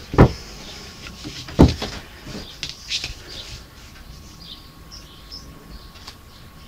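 A clear plastic ruler is set down on the drawing table: two sharp knocks about a second and a half apart. Light taps and rustles of the ruler and paper follow as it is lined up.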